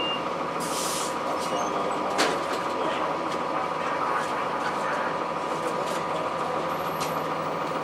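Inside a 2002 Blue Bird CS transit bus under way: steady cabin noise from its Cummins ISC diesel and Allison automatic transmission, with interior rattles and clicks. A short hiss comes about a second in.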